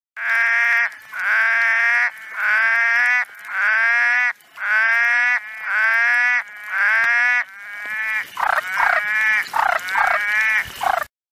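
An animal calling over and over: seven pitched calls of about a second each, then a run of shorter, quicker calls near the end.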